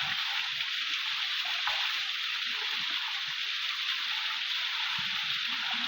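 Waterfall pouring into a river: a steady, even rush of falling water.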